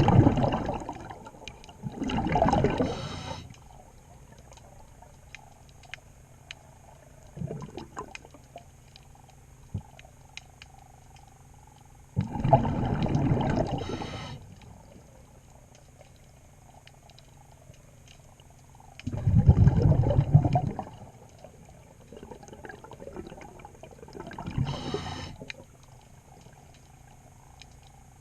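Scuba diver breathing underwater through a regulator: exhaled air bubbles out in loud one-to-two-second rushes, with long pauses between breaths. Faint clicks in the quieter stretches.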